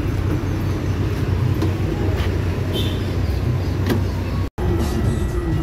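Leyland bus's diesel engine running at idle, a steady low rumble, with small scattered clicks and knocks around it. The sound drops out completely for an instant about four and a half seconds in.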